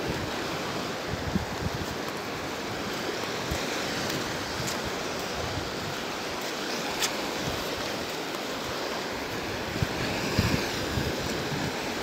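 Small sea waves washing steadily over a flat rocky shore shelf, a continuous hiss of surf, with light wind buffeting the microphone.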